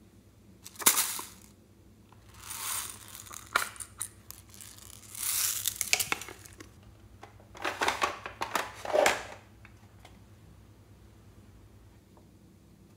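Hard plastic case being handled and opened, then its soft yellow contents pried and scraped out: several separate bursts of crackling and scraping with sharp clicks, the loudest a sudden snap about a second in.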